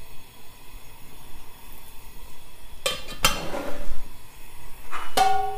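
A metal spoon clinking against a glass salt jar as the jar is handled and set down: two knocks about three seconds in, then a sharper clink near the end that rings on with a clear tone.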